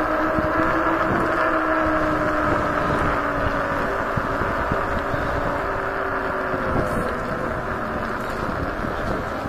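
Kaabo Wolf Warrior 11 electric scooter under way, its dual motors giving a steady whine that drops slowly in pitch, over a low rumble of wind buffeting the microphone.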